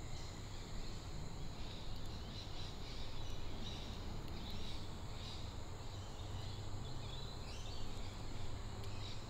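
Bushland ambience: a steady high-pitched insect drone with repeated short bird calls over it, and a low rumble of wind.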